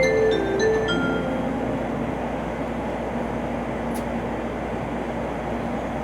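A Tokaido Shinkansen train running at speed, heard inside the passenger car as a steady even rumble with a faint hum. The last notes of the onboard announcement chime end about a second in, and there is a brief click about four seconds in.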